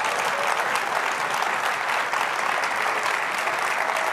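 A large audience in a hall applauding steadily, a dense patter of many hands clapping.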